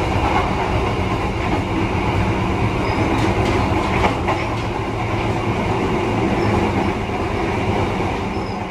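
Argo Semeru passenger train running along the track: a steady rumble of wheels on rails, with a couple of faint clicks about three and four seconds in.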